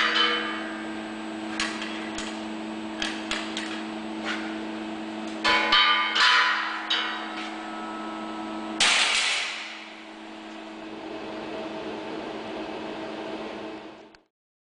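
Steady hum of production machinery in a robotic welding cell, under a series of sharp metallic clicks and clanks as metal parts and fixtures are handled, most of them about five to seven seconds in. A loud hissing burst follows just before the middle and fades over about a second, and the sound cuts out briefly near the end.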